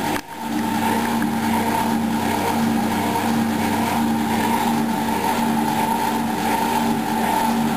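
Predom Polar Westa-85 front-loading washing machine running through its BIO wash programme: a steady mechanical hum with a constant whine, with a brief drop just after the start.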